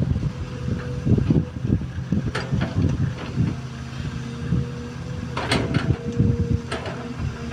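XCMG XE215C hydraulic excavator's diesel engine running steadily under working load, with a few short sharp knocks over it.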